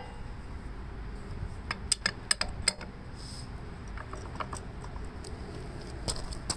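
Sharp metallic clicks and clinks of a large adjustable wrench shifting on the starter-clutch nut of a Gravely walk-behind tractor as it is heaved on. The clicks come in a quick cluster about two seconds in, with a few fainter ones later; the nut does not break loose.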